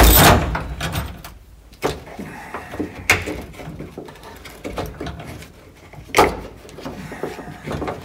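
Knocks and light clatter of metal hardware as a seatbelt's shoulder anchor is handled and fitted against a car's steel door pillar. There is a loud knock at the start, then a few smaller knocks.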